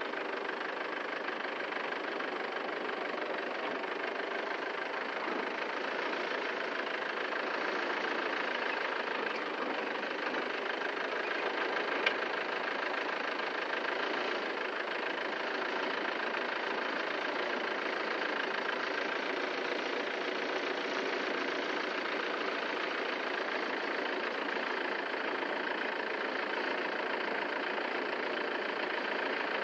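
Machinery running steadily, a continuous mechanical drone with faint steady tones in it and one short click about twelve seconds in.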